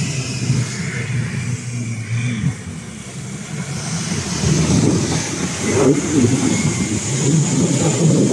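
Nissan Patrol Y61's ZD30 four-cylinder turbo-diesel engine pulling the truck over rocks and mud on big off-road tyres. It grows louder from about halfway as the engine is pushed harder and the tyres spin and throw mud.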